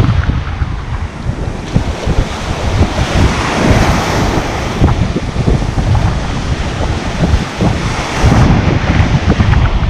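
Ocean surf breaking and washing up the sand, swelling louder twice as waves come in, with strong wind buffeting the microphone.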